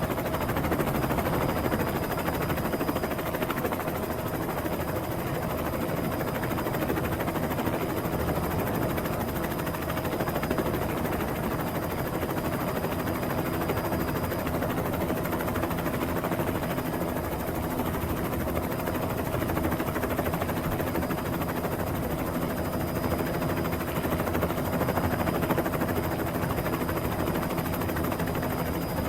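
A steady mechanical drone, like a vehicle or rotor, that rises quickly out of silence just before it and then holds an even level.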